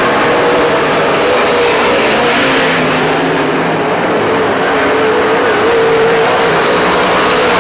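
Super stock race cars running around a dirt oval, several engines sounding together in a steady, dense din whose pitch wavers up and down as they throttle through the turns.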